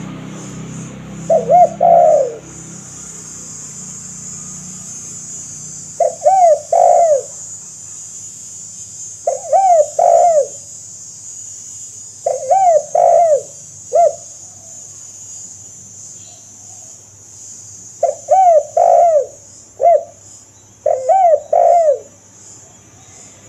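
Spotted dove (tekukur) cooing: six phrases of two to four low, arched coos, each phrase a second or two long, with pauses of a few seconds between them. A steady high hiss runs underneath.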